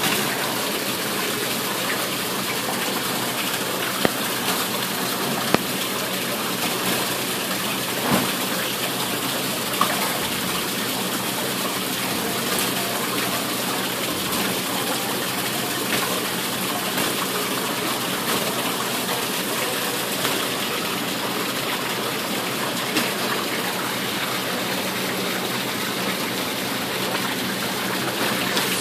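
Water from an ornamental rock fountain's small waterfall splashing steadily into its fish pool, with a few faint clicks.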